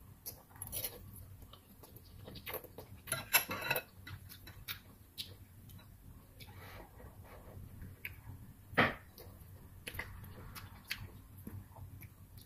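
Mukbang eating sounds: noodles sucked in and chewed, with a metal fork and spoon clicking against a glass bowl. Two louder noisy slurps, one about three seconds in and one about nine seconds in.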